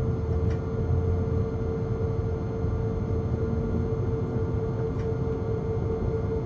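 ICE 2 power car's traction equipment running as the train pulls away: a steady electric whine on one held tone over the rumble of the running gear, heard from the driver's cab.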